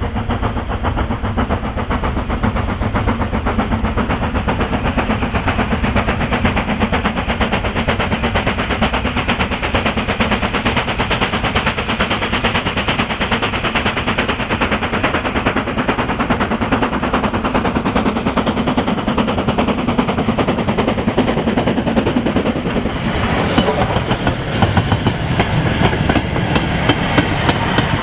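Steam locomotive working hard at the head of a freight train, its exhaust beats coming fast and heavy as it approaches. In the last few seconds the goods wagons roll past with a rhythmic clatter of wheels over the rail joints.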